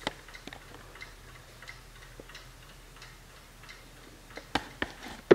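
1960s Hermle mantel clock's mechanical movement ticking steadily. Near the end come a few louder knocks, the last and loudest followed by a brief low ring.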